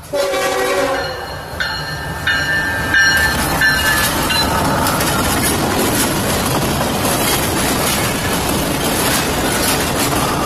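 Diesel freight locomotive's horn sounding, starting suddenly, with higher-pitched tones over the next few seconds. From about four seconds in, the steady rumble and clatter of freight cars rolling past.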